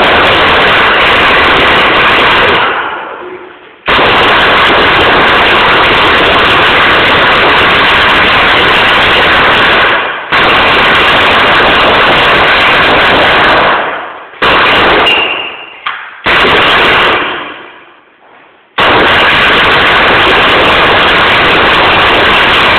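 A crowd of players shouting and screaming during a game round in a large hall, loud enough that the recording distorts. It comes in several long stretches of a few seconds each, each dying away before the next outburst.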